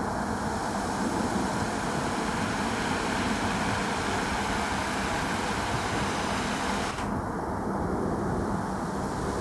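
A steady rushing background noise, with no distinct events apart from one sharp click about seven seconds in.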